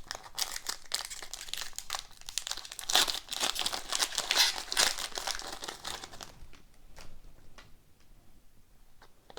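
Trading card pack wrapper crinkling as it is handled and torn open, for about six seconds, then a few faint light ticks.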